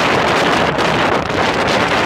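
Loud, steady wind buffeting the microphone of a 1942 Ford GPW jeep at road speed, with the vehicle's driving noise mixed in beneath it.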